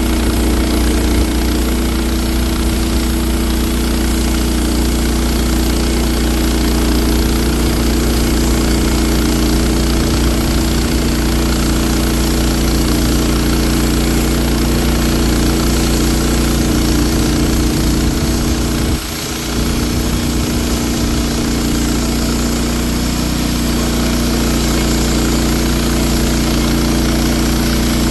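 Wood-Mizer portable band sawmill's engine running steadily during the milling of a log, with a brief dip in level about two-thirds of the way through.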